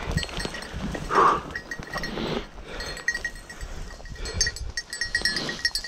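Footsteps brushing through dry bracken and grass, with light clinking throughout and a short, loud call about a second in.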